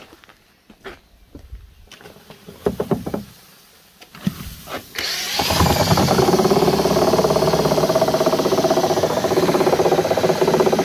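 A handful of knocks and rustles, then about five seconds in a Makita power drill starts up and runs steadily. It is driving a mixing paddle through hydrated lime and acetic acid in a plastic drum, giving a loud, even motor whine.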